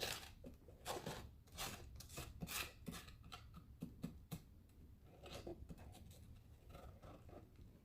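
Faint, crisp scratching and rustling handling noises: a quick run of short ones over the first four seconds, then fewer and quieter.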